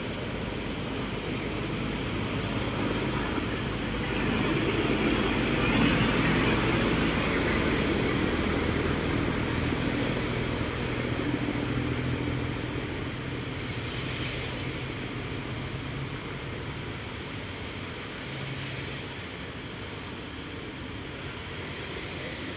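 A distant engine drone that swells over the first several seconds and then slowly fades, over a steady background rush.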